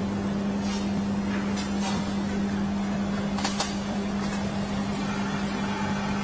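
Steady low machine hum at one pitch, with a few light clicks and knocks over it.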